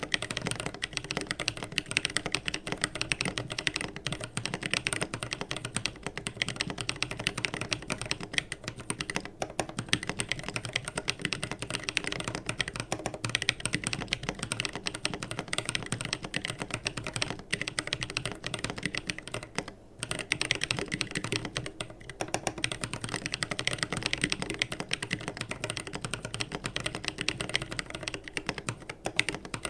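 Keebio Nyquist split ortholinear mechanical keyboard being typed on steadily, a fast run of key clicks and clacks, with a brief pause about twenty seconds in.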